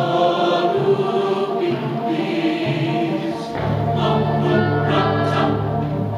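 Mixed choir of teenage voices singing together. About three and a half seconds in, a low steady bass part comes in under the voices.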